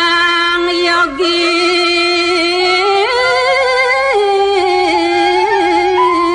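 A solo voice singing a slow, chant-like melody in long held notes that waver gently. The pitch steps up about three seconds in and falls back a second later.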